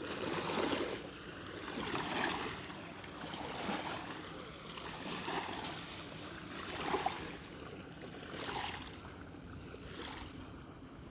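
Small sea waves lapping on the shore, a soft wash rising and falling about every second and a half, easing off near the end.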